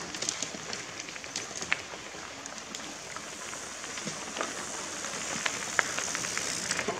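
Mountain bikes rolling past on a gravel road: tyres crunching and crackling over loose stones, with scattered sharp clicks.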